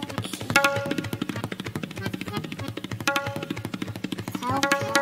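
Background music: a tabla playing a fast, continuous run of strokes, with short pitched melodic notes from an accompanying instrument about half a second in, around three seconds in, and near the end.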